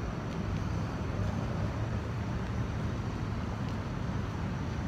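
Steady low outdoor background rumble.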